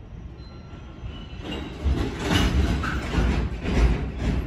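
Freight train's container wagons braking to a stop. From about a second and a half in come high brake squeal and a run of heavy clunks and grinding, which die away as the train halts near the end.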